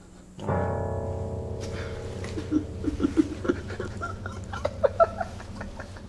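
Old upright piano played by hand. A loud chord is struck about half a second in and rings on, slowly fading, then a quick string of short single notes is played higher up.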